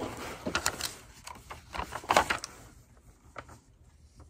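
Cardboard Priority Mail box being torn open: a run of short rips and scrapes of taped cardboard and rustling paper over the first two and a half seconds, then a few faint taps and rustles.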